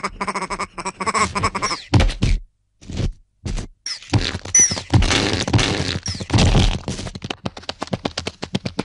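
Cartoon sound effects: a rapid string of knocks, pops and clicks, broken by two short silences, with a few brief high squeaks that fall in pitch.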